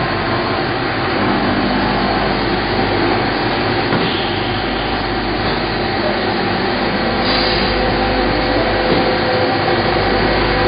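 Steady machine-shop noise from CNC lathes running, a continuous whirring hum with a few faint steady tones.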